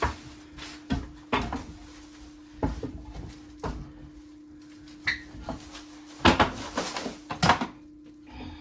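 Irregular knocks and clunks of a microwave oven being handled and fitted against its wall mounting plate and the cabinet above, about eight knocks with the loudest cluster near the end, over a steady low hum.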